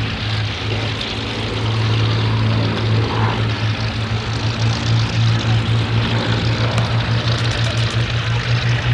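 Two Hawker Hurricane Mk I fighters' Rolls-Royce Merlin V12 piston engines running in a formation display, a loud low propeller drone that takes on a rapid throbbing pulse from about three seconds in.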